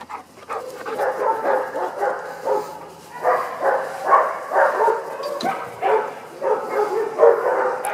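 Dogs barking and yipping in short bursts, one after another, with barely a pause.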